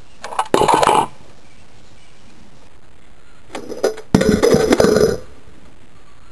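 Plastic Nerf blaster being reloaded by hand: two bursts of clicking and rattling, a short one near the start and a longer one about halfway through.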